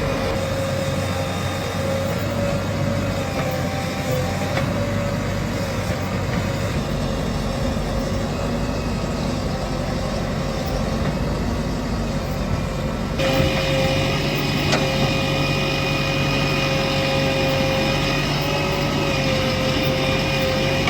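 Heavy diesel engines of a backhoe loader and tractors running steadily, with a constant engine note throughout. The sound changes abruptly about 13 seconds in and becomes slightly louder.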